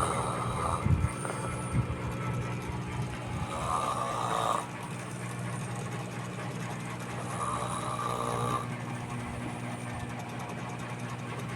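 A sleeping child snoring, with three rasping breaths about four seconds apart over a steady low hum.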